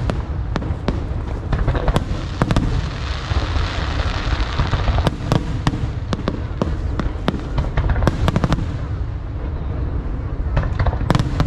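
Aerial fireworks going off in a dense, irregular run of sharp bangs and crackles over a continuous low rumble.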